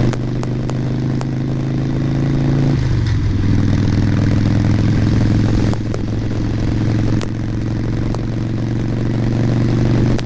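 Harley-Davidson Sportster Nightster's air-cooled V-twin running steadily under way, heard through a helmet-mounted microphone. Its pitch dips and wavers about three seconds in, then settles, with sharp clicks now and then: the popping and crackling of the microphone setup.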